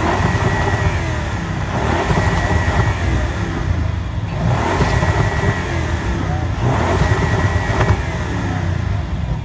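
A car engine running at idle with repeated throttle blips, rising about every two and a half to three seconds.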